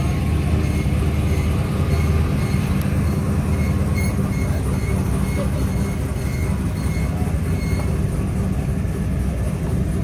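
Drag-race cars' engines idling, a loud steady deep rumble.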